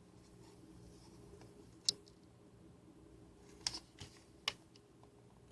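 A few short, sharp light clicks and taps: one a little under two seconds in, then three or four close together about two seconds later, over faint steady room hum.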